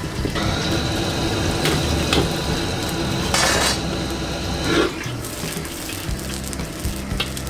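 Stir-frying in a wok over a gas wok burner: a metal ladle scraping and clinking against the wok while egg and shrimp sizzle in hot oil, with a louder burst of sizzling about three and a half seconds in. A steady high whistle runs through the first five seconds.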